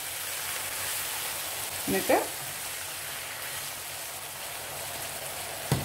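Diced carrots and green beans sizzling steadily in oil and a little just-added water in a nonstick frying pan, stirred with a spatula. There is a single sharp knock near the end.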